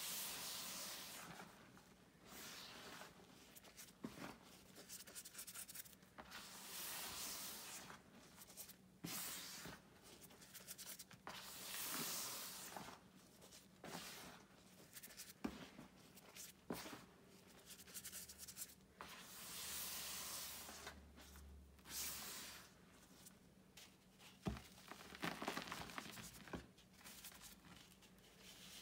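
Hands crumbling a block of pink-dyed gym chalk and raking through loose chalk powder in a plastic bucket: soft, repeated hissing scrapes, each a second or two long, with a few sharp clicks.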